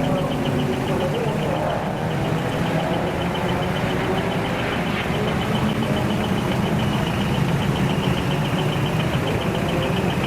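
Heavy diesel truck engines running steadily, with a fast, regular high ticking laid over them.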